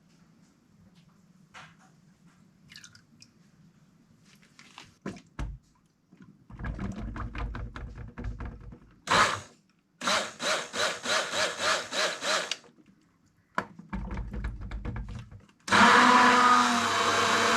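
Hand-held stick blender mixing lye solution into soap oils, bringing the soap batter to emulsion. A few quiet knocks first, then the blender runs in short spurts from about six seconds in, with rapid pulsing around ten seconds, and runs steadily and loudest near the end.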